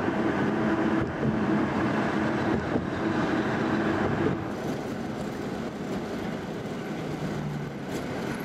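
Inside the cabin of a 2015 Ford Mustang EcoBoost driving with the windows down: wind and road noise rushing in over the steady hum of its 2.3-litre turbocharged four-cylinder engine, easing a little about four seconds in.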